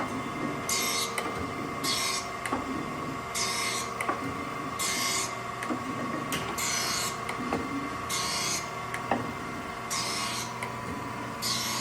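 Acer AGS-1224-AHD hydraulic surface grinder running in automatic mode: a steady hum from the spindle and hydraulics, with a high grinding hiss that comes and goes about every second and a half as the table carries the part back and forth under the wheel.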